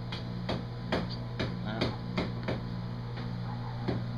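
A series of sharp knocks or taps, roughly two a second and unevenly spaced, over a steady low mechanical hum.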